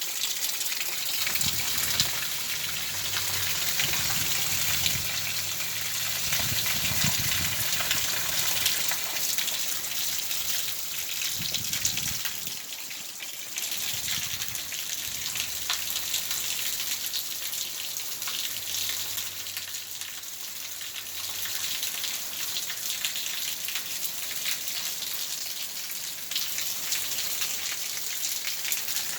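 Heavy rain shower falling: a steady, dense hiss of rain with the patter of drops on surfaces.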